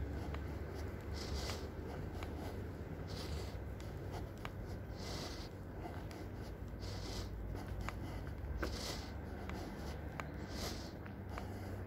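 A person walking: a soft swish of steps and clothing repeats about every two seconds, with a few light ticks, over a steady low rumble.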